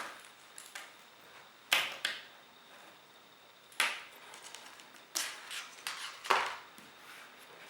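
Handling noise: four sharp knocks, a few seconds apart, each ringing briefly, with lighter clicks between them, like hard objects set down or handled on a surface.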